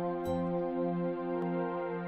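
Background music of sustained, held chord tones.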